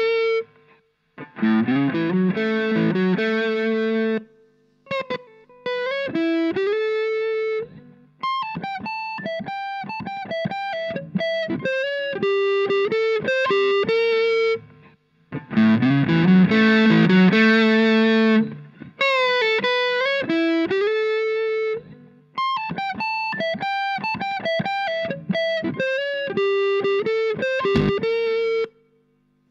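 Electric guitar playing a single-note lead phrase with string bends through a DIY Tube Screamer-style overdrive pedal set to high gain, repeating on a looper about every 14 seconds. About halfway through, the pedal's clipping changes from Tube Screamer-style to the flat, symmetric-clipping option.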